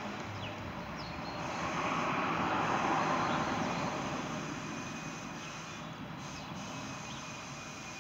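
Outdoor traffic noise: a passing vehicle swells to its loudest about two to three seconds in, then fades, with a few faint bird chirps.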